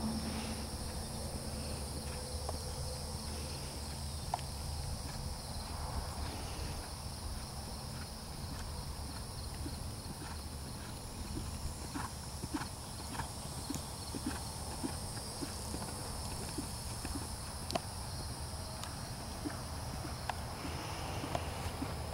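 Horse's hoofbeats on a sand arena at a trot, a regular series of short footfalls about two a second over a steady low rumble.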